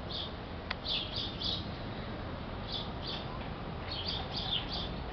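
Small birds chirping: short, high notes in irregular clusters, over a steady low background hum.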